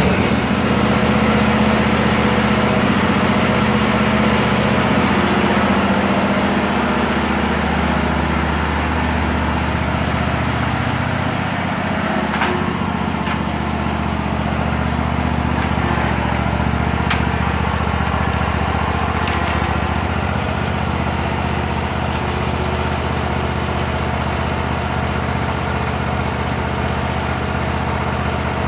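Hustler Raptor zero-turn mower engine running steadily just after being started, a little louder for the first few seconds, as the mower is driven up the trailer ramp.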